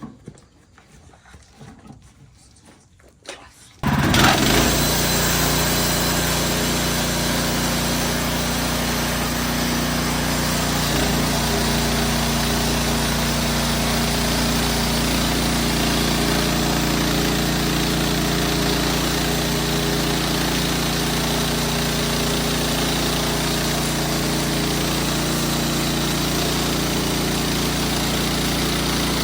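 Wood-Mizer LX55 portable band sawmill running steadily at an even level, its engine drone and blade noise coming in abruptly about four seconds in after a few quiet seconds of small knocks.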